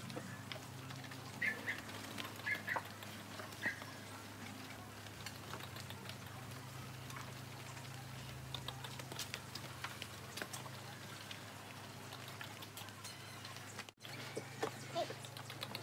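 Carabao's hooves squelching and patting in wet clay as it treads the mixing pit, a scatter of soft irregular pats over a steady low hum.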